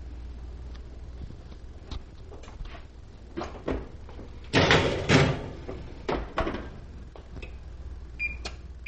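Oven door opening, a metal baking sheet sliding onto the oven rack with a clatter about halfway through, then the door shutting. Near the end there are short electronic beeps as the oven's control buttons are pressed.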